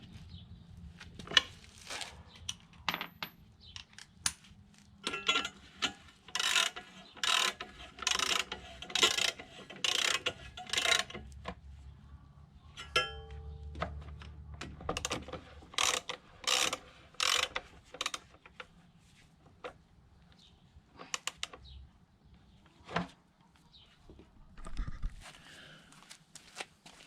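Hand tools working on a scooter's rear wheel hub during a wheel bearing replacement: a run of sharp metallic taps and clicks, about two a second for several seconds, then scattered knocks.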